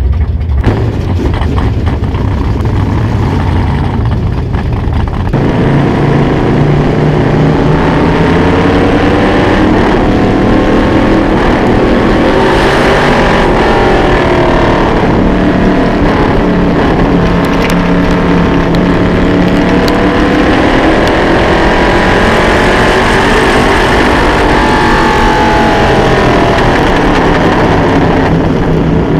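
Vintage late model dirt-track race car's engine heard from on board, running low and rough for about five seconds, then opening up abruptly. Its pitch rises and falls again and again as it accelerates and backs off around the oval.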